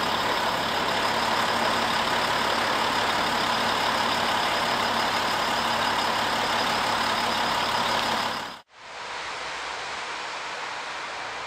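Diesel locomotive engine running steadily as a Czech class 742 shunting locomotive approaches slowly. Near the end the sound cuts off abruptly and is replaced by a quieter, even hiss.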